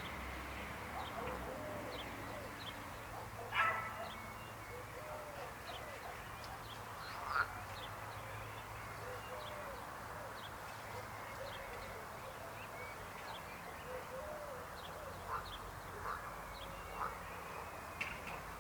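A chorus of croaking frogs, a dense, continuous mass of overlapping calls, with small higher chirps over it and a few louder, sharper calls standing out, the loudest about three and a half seconds in.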